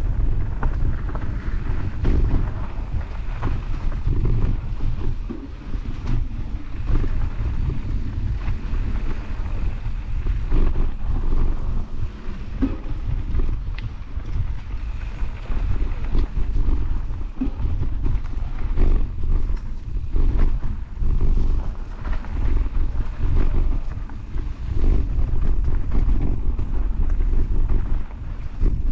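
Wind buffeting a mountain bike's action-camera microphone as the bike rolls fast over a dirt trail, with tyre rumble and scattered clicks and rattles from the bike over the bumps.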